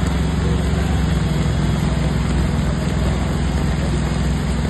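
Heavy rain pouring down in a steady rush, over a low, steady rumble.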